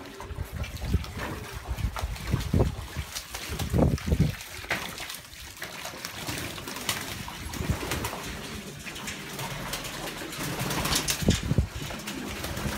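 Racing homer pigeons cooing repeatedly, with scattered short clicks among them.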